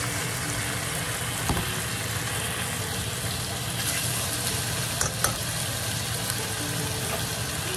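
Chicken thighs sizzling as they brown in a nonstick frying pan, with a few clicks of metal tongs as the pieces are turned, about a second and a half in and twice around five seconds in, over a steady low hum.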